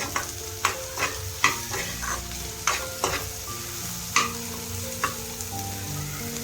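Chopped onion sizzling in hot oil in a kadai while a spatula stirs it, knocking and scraping against the pan about eight times at uneven intervals.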